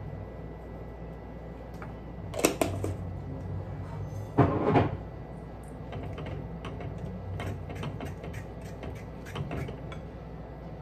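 Handling noises in a kitchen: a few sharp knocks and a short clatter from about two to five seconds in, then a run of small clicks and scrapes as a spatula stirs crepioca batter in a ceramic bowl.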